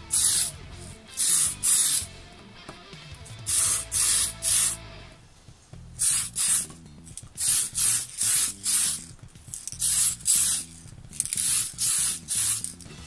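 Aerosol spray can of metallic red paint hissing in short bursts of a fraction of a second, in quick groups of two to four with brief gaps between them, as a coat is laid onto a plastic R/C car body shell.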